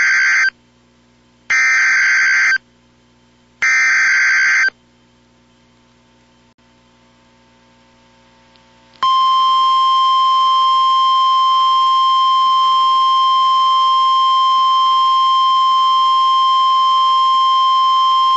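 Emergency Alert System header: three loud one-second bursts of warbling digital data tones (the SAME header that encodes the alert), about a second apart, then after a pause of several seconds the attention tone starts, one steady high tone held long. Together they signal that a voice warning, here a tornado warning, follows.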